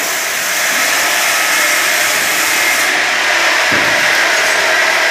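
Multi-blade rip saw running and cutting wood fed on its conveyor, a loud steady sawing noise. A dull thump comes a little over two-thirds of the way through.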